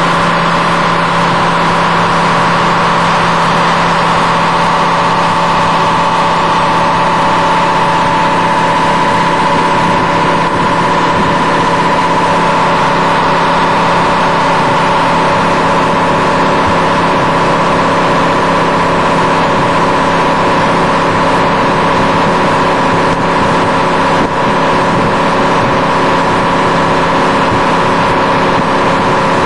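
Range Rover Sport's 4.4-litre V8 running at a steady, unchanging speed through a Supersprint aftermarket exhaust, a continuous even drone.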